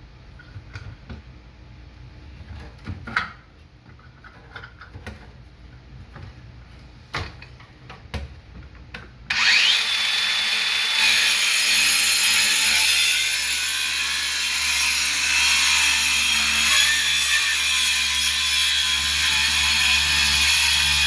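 A few knocks and clicks of handling for about nine seconds. Then a DeWalt DCS571 20V Atomic 4-1/2-inch brushless cordless circular saw starts with a brief rising whine and cuts steadily into a cabinet. The sound gets louder and harsher a couple of seconds in, as the blade bites in.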